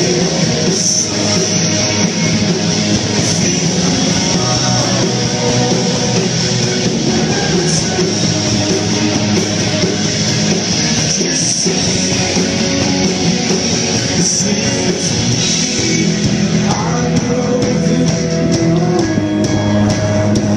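Rock band playing, with electric guitar prominent and some singing, loud and continuous.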